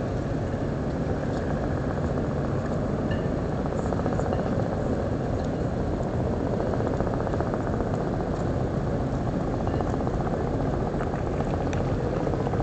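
Steady low engine rumble, even and unbroken, with no clear beat.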